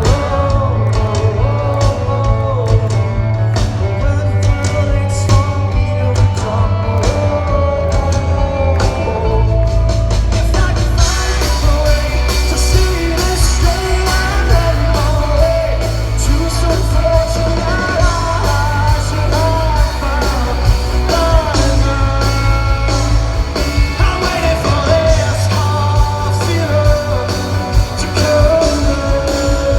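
Live rock band performance with a lead singer over bass and drums. The band fills out with cymbals about eleven seconds in.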